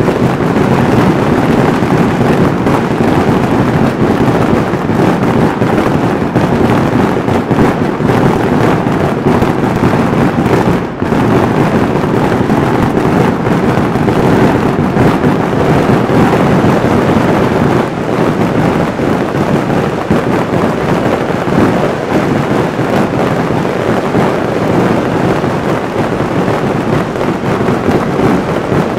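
Daytime fireworks barrage: detonations so rapid and dense that they merge into one continuous loud rumble, with a brief dip about eleven seconds in.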